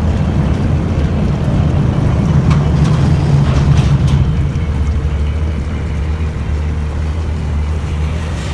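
Small boat's outboard motor running steadily under way, a little louder in the first half.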